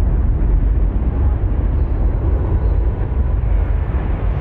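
Low, steady rumble of two 500-foot cooling towers being brought down by explosive demolition as they begin to collapse, with no single sharp blast standing out.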